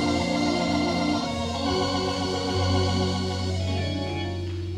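Organ playing held chords that change a few times, some notes with a pulsing waver, growing softer near the end.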